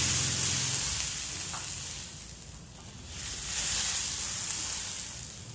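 Water poured into a hot wok of sautéed chicken gizzards and liver, hissing and sizzling as it flashes to steam. The hiss swells twice, at the first pour and again about three and a half seconds in, then eases.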